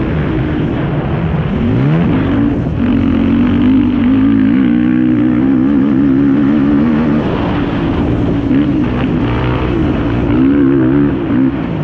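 Yamaha YFZ450R quad's single-cylinder four-stroke engine running hard at high revs. The revs drop and climb steeply about two seconds in, then stay high with a wavering pitch.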